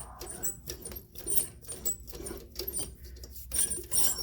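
A thread tap being turned by hand to cut an internal thread in a metal trumpet valve stem. It makes an irregular string of small metallic clicks and squeaks, which get louder near the end.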